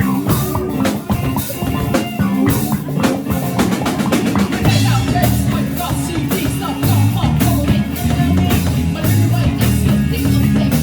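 Live rock band playing a song: drum kit keeping a steady beat under bass and guitar, with a singing voice in places.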